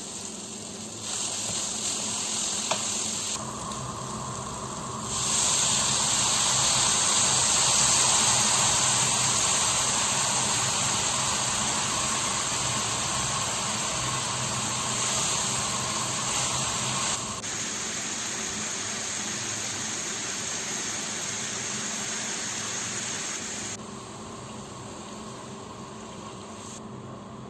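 A steady hiss from cooking, in several stretches that switch on and off abruptly and change loudness at each change, loudest between about 5 and 17 seconds in.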